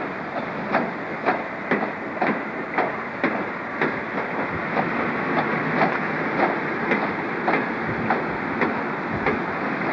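Electric locomotive-hauled passenger train passing, its wheels clicking over rail joints about twice a second over a steady rumble.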